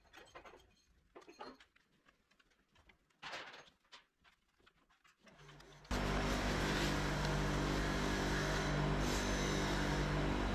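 A few faint clicks and a short knock of hand tools, then about six seconds in a machine starts abruptly and runs on with a steady low hum and hiss.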